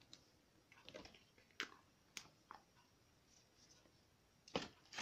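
Faint, scattered clicks and taps of plastic bath-salt bottles and a scrub jar being handled in a cardboard box lined with thick wrapping paper, with a louder cluster of knocks near the end.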